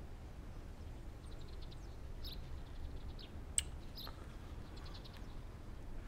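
Quiet, low background hum with a few faint, short high chirps and trills scattered through it, and one sharp click about three and a half seconds in.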